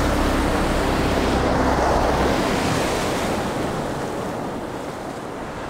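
Shallow surf washing over wet sand, a steady rush that slowly fades, with wind on the microphone.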